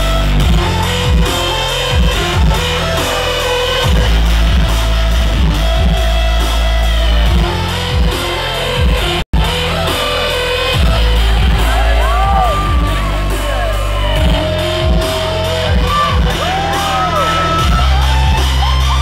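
Loud rock-style music with guitar and heavy bass playing over a PA system, with a momentary cut-out about nine seconds in. In the second half, high rising-and-falling whoops sound over the music.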